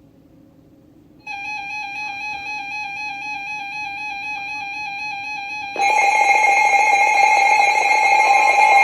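NOAA Weather Radio alert tones at the start of a severe thunderstorm warning. After a faint opening second, a wavering electronic alarm tone comes in. At about six seconds a louder, steady alert tone with static hiss joins it.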